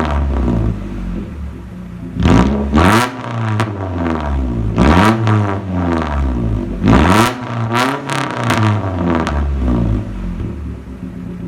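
1992 Toyota Camry engine breathing through an exhaust with no muffler or resonator, only the catalytic converter: a series of quick throttle blips, each rising and falling back in pitch, with crackles and pops as it comes off the revs. It settles to a steady idle near the end.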